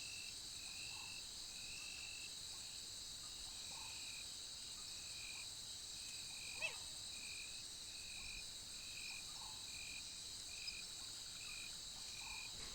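Steady high-pitched chorus of crickets and other insects, with a short repeated note about twice a second and one brief call about halfway through.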